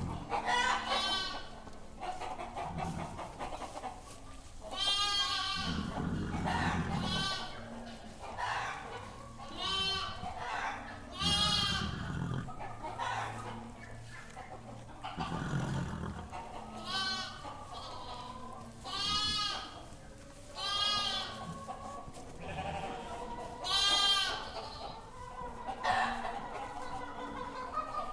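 Goats bleating over and over, each call a quavering, wavering cry lasting about a second.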